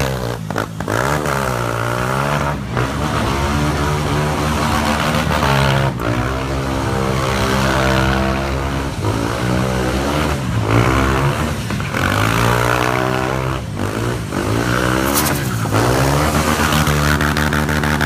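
Go-kart engine revving hard, its pitch rising and dropping back over and over, every two to four seconds.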